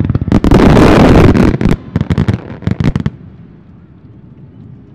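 Japanese fireworks (hanabi) display: aerial shells bursting in a dense barrage, then a rapid string of sharp cracks and bangs that stops suddenly about three seconds in.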